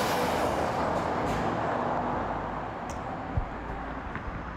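Road traffic noise from a street, a steady rush that fades over a few seconds as a vehicle passes away, with one soft low thump about three and a half seconds in.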